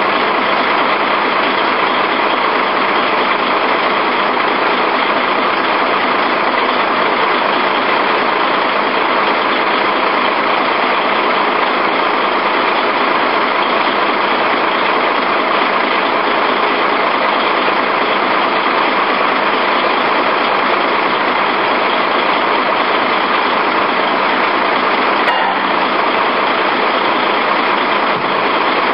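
Heavy vehicle diesel engine running steadily at close range, with one short click near the end.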